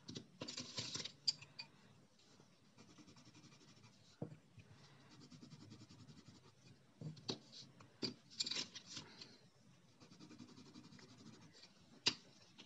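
Coloured pencil scribbling test strokes on paper: short bursts of dry scratching. Sharp clicks of wooden pencils being set down and knocking against each other come several times.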